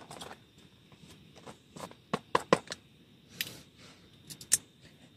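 Irregular sharp clicks and taps, like small objects being handled. A quick cluster comes about two seconds in, one about three and a half seconds in, and another cluster near the end.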